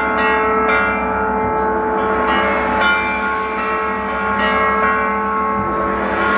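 Struck gong and bell-like metal percussion ringing in many overlapping sustained tones, with a fresh strike every half second to a second.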